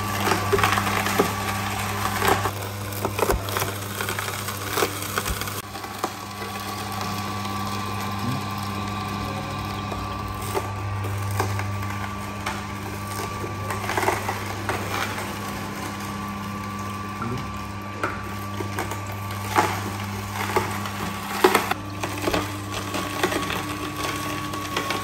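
Omega horizontal masticating juicer running with a steady low motor hum while its auger crushes carrot sticks pushed down the feed chute, giving irregular cracking and crunching snaps throughout.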